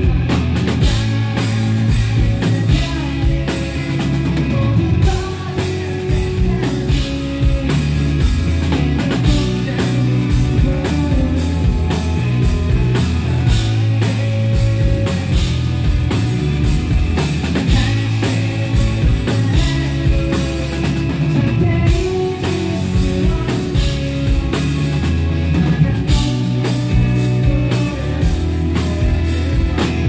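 Live indie rock band playing a song: a Fender electric guitar, bass and a drum kit keeping a steady beat, with a male voice singing over them.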